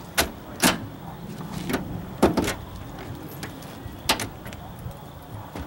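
Sharp clicks and clunks from a Toyota Yaris passenger seat being adjusted and pushed all the way down, about six in all, with the loudest a double knock a little after two seconds in.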